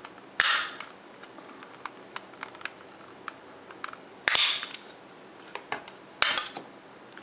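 Plastic retaining clips of a white packaging tray snapping loudly three times as a mouse is pried free, the first near half a second in, then about four and six seconds in, with small plastic clicks between. The snaps sound like something breaking, but they are the clips releasing as designed.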